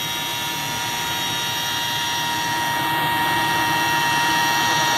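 80-horsepower electric motor spinning at high speed, above 8,000 rpm, on a dynamometer test bench: a steady whine made of several pure tones over a rushing noise, growing gradually louder as it runs up toward 10,000 rpm.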